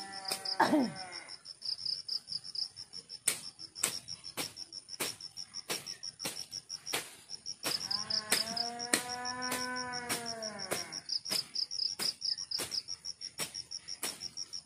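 Crickets chirping in a steady, high, pulsing trill, with sharp clicks every half second to a second. About eight seconds in, an animal gives one long drawn-out call lasting about two and a half seconds.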